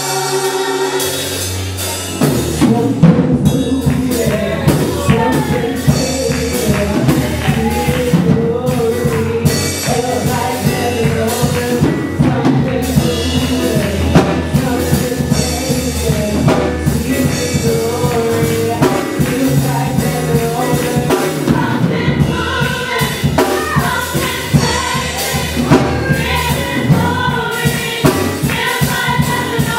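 Gospel music with voices singing together over a band; a steady drum beat comes in about two seconds in.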